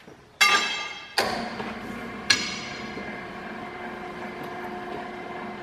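Three sharp metallic clangs that ring on as a steel leaf spring goes into the rollers of a motor-driven three-roll bending machine, followed by the machine's small electric motor running steadily with a whine, straining under the heavy load of bending the hard spring steel.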